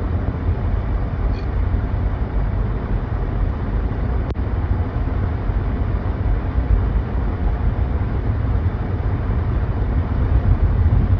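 Steady road and engine noise inside a moving car's cabin, an even low rumble.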